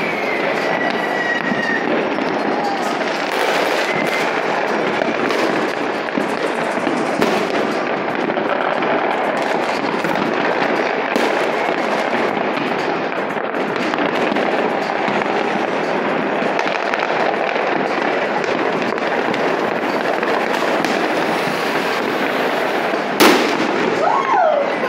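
Many fireworks and firecrackers going off across a city, a dense, unbroken crackle of pops and bangs, with one sharp, louder bang near the end.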